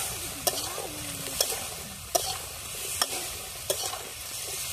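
Potatoes frying in spiced mustard-oil masala, sizzling steadily while a spatula stirs them, each stroke clicking against the pot, about five strokes a little under a second apart.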